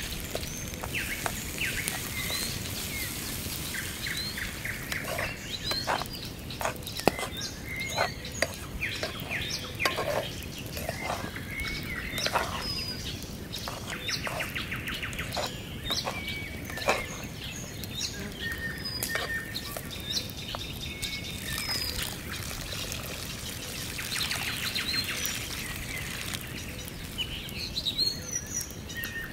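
Small birds chirping and singing, with a metal spatula scraping and knocking on a frying pan as rice is stirred. Under them is a steady sizzling hiss from the rice frying.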